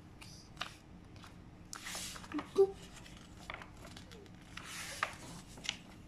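Pages of a large glossy picture book being turned by hand: two paper swishes, about two and five seconds in, with small taps and rustles of the pages in between.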